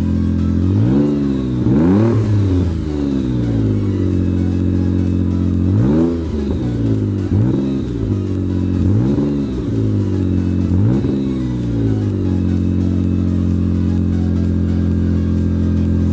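Turbocharged car engine, fitted with a new aftermarket blow-off valve, idling and blipped through about six quick revs that rise and fall back to idle, then idling steadily after about twelve seconds.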